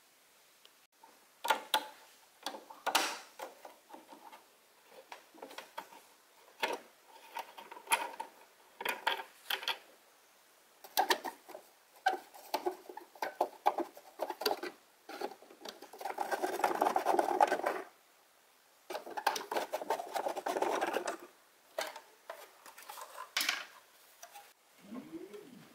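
Hand work on hard parts: a string of clicks and knocks, with two longer stretches of scraping or rubbing, the first about 16 seconds in and the second about 19 seconds in.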